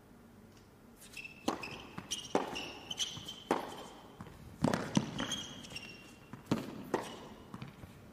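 Tennis rally on an indoor hard court: sharp pops of racket strikes and ball bounces about once a second, starting about a second in, with short high squeaks of players' shoes on the court between them.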